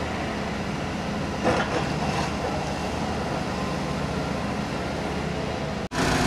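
Heavy construction machinery engine running steadily, with a brief louder noise about a second and a half in; the sound cuts out suddenly near the end.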